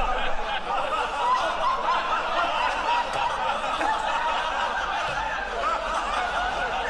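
Several people snickering and chuckling at once, many short laughs overlapping at an even level.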